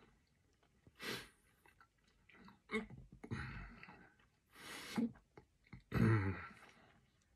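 A man reacting to the heat of a very hot chili licorice ball as he eats it: a few hard breaths out, some chewing, and a loud throat-clearing cough about six seconds in.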